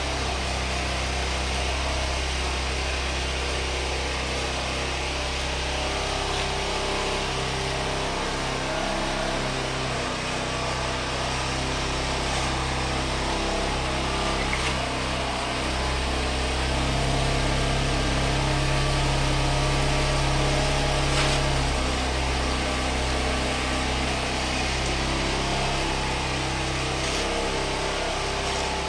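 A small engine or motor running steadily, a little louder for a few seconds past the middle.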